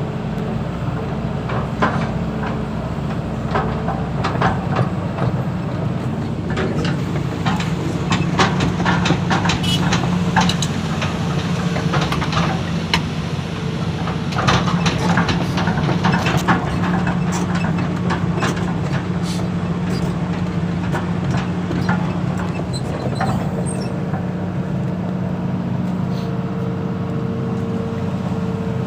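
Excavator's diesel engine running steadily, with a run of sharp knocks and clanks through the middle. A steady higher whine joins near the end.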